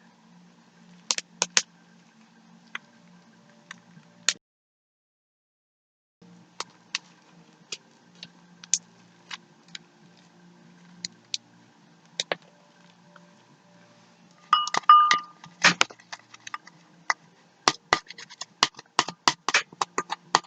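Homemade shaving-cream slime being squished and stretched by hand, giving off scattered sharp clicks and small wet pops that come thicker in the last few seconds. The sound drops out to silence for about two seconds near the start.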